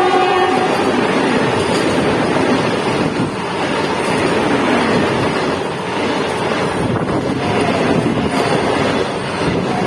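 A Vande Bharat Express train rushing past at speed: a loud, steady rush of air and wheels on the rails. The last of its horn blast cuts off about half a second in.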